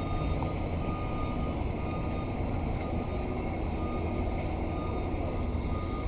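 Low, steady rumble of heavy construction machinery, with a faint, high reversing alarm beeping over it.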